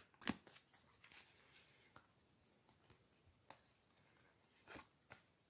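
Near silence, broken by a few faint, soft clicks and rustles of a deck of oracle cards being handled and spread into a fan.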